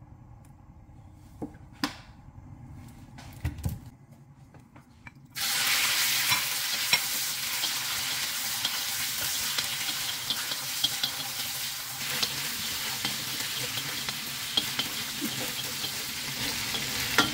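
Chopped chicken wings dropped into hot oil in a wok start sizzling suddenly about five seconds in and keep up a steady sizzle as they are stirred with a wooden spatula. Before that there are only a few light knocks.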